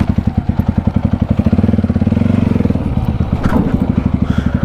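Motorcycle engine idling with a rapid, even throb, and a brief knock about three and a half seconds in.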